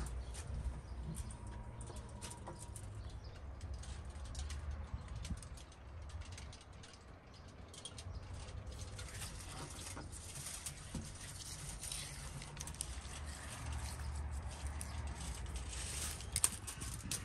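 Hands handling a large roasted beef leg as olive oil is poured over it and rubbed in: many small scattered clicks and wet rustles over a low rumble.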